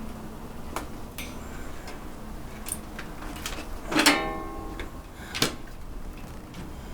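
Handling and taking apart a Mars II 1200 LED grow light: scattered light clicks and knocks of parts. About four seconds in there is a loud metallic clank that rings briefly, and a second sharp knock follows about a second later.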